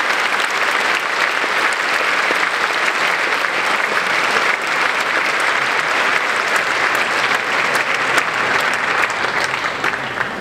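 A large audience clapping steadily in a big hall, thinning out right at the end.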